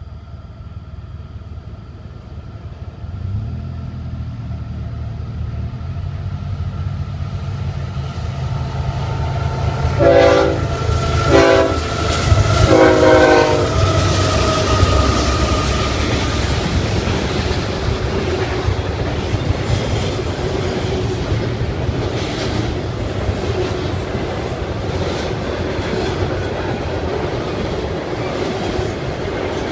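CSX locomotive approaching with a building engine rumble, then sounding its air horn: two short blasts and a longer third, several notes at once. The train then passes with steady rolling noise and wheel clatter over the rail joints.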